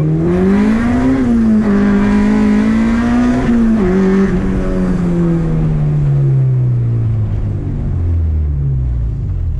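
K20A2-swapped Honda Civic's 2.0-litre four-cylinder pulling hard through the gears. The pitch climbs steeply for about a second, drops at an upshift near two seconds in and again near four seconds, then falls slowly as the car eases off.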